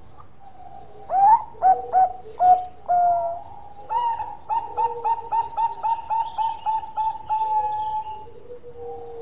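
Bangkok-strain zebra dove (perkutut) singing its cooing song: five loud separate opening notes, then a quick even run of about a dozen short coos, roughly three a second, ending in a longer held note and a softer, lower closing note.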